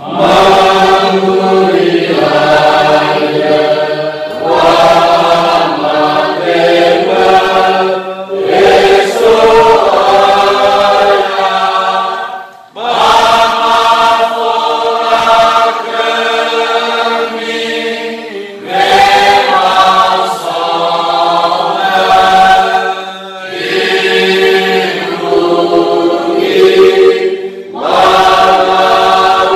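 Many voices singing a liturgical song together, in long phrases broken by brief pauses for breath every few seconds.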